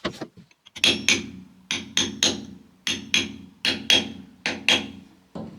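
Hammer blows tapping a new oil seal into the topper's gearbox housing: about a dozen sharp strikes, mostly in quick pairs, each with a short metallic ring. The seal is being driven in until it sits flush.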